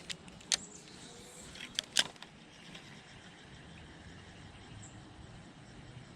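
A few sharp clicks or knocks, four of them in the first two seconds, the loudest about two seconds in, over a low steady background.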